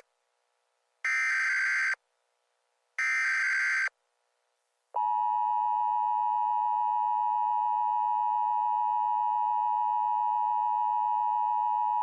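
Two Emergency Alert System SAME header bursts, each a harsh digital data screech about a second long, a second apart. About five seconds in, the steady two-tone EAS attention signal starts and holds.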